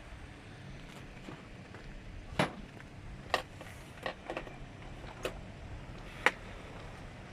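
Scattered short knocks and clicks, about six at uneven gaps, two of them sharper and louder than the rest.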